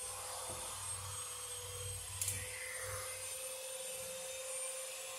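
Orange 10-gauge Romex cable being pulled and handled inside a metal breaker panel, with one sharp click about two seconds in, over a steady hum and hiss.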